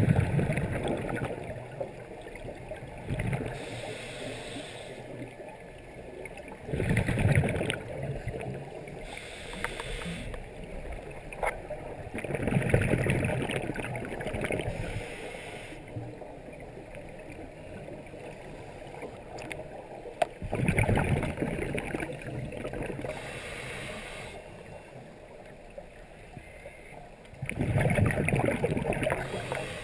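Scuba regulator breathing heard underwater: a loud bubbling rush of exhaled air roughly every six to eight seconds, with a softer hiss of inhaled air between breaths.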